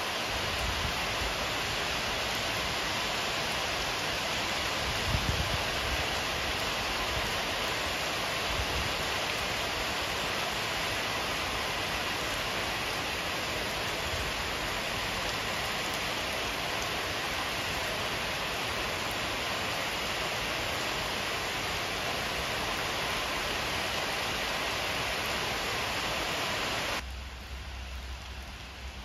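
Heavy rain falling steadily and splashing into standing water on a flooded paved car park. It turns suddenly quieter near the end.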